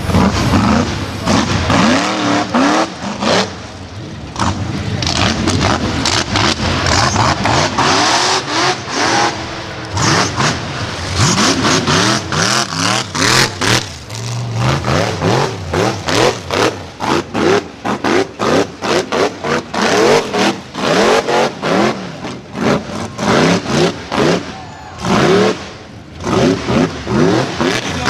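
Off-road vehicle engine revved hard over and over while being driven, its pitch sweeping up and falling back again and again, with many short, sharp throttle blips and cuts.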